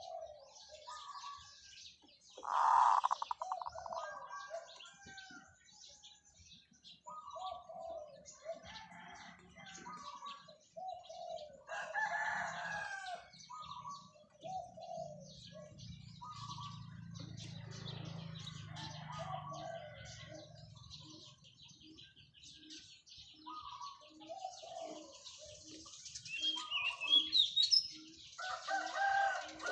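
Zebra dove singing, a series of short rolling coos repeated every second or two. A rooster crows loudly about three seconds in, and small birds chirp throughout.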